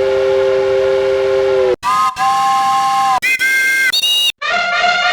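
Train horn sound effect played as a run of edited variations. A held multi-note chord blast cuts off abruptly; three shorter blasts follow, each pitched higher than the last. Near the end a new processed version of the horn chord starts, with a pulsing wobble.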